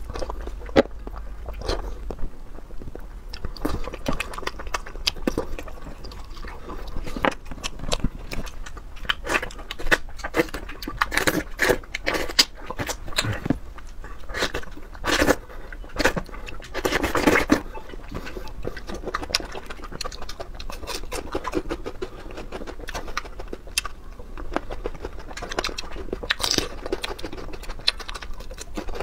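Close-miked eating sounds: a man biting and chewing soft fruit and snacks, with a dense run of wet mouth clicks, squelches and crunches.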